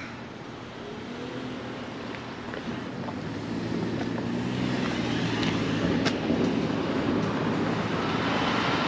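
Road traffic going by, growing steadily louder, with a low hum under the noise.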